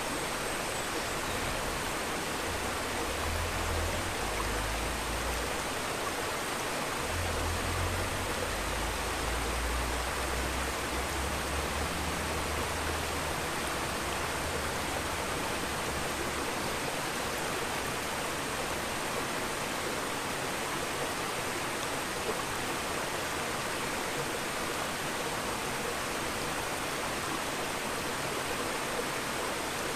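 Steady rushing noise of flowing water, with a low rumble in the first half.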